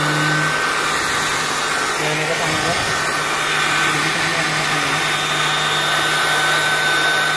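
Polymake 400 W electric hand blower running steadily at full speed: a high motor whine and low hum over rushing air.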